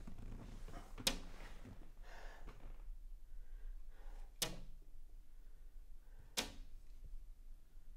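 An empty glass bottle knocking sharply against a tabletop three times as it is handled, with soft rustling of clothing and the sofa between.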